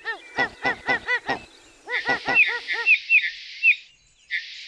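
A quick run of short honking calls, about five in the first second and a half and a few more around two seconds in, followed by higher chirping notes over a hiss that return briefly near the end.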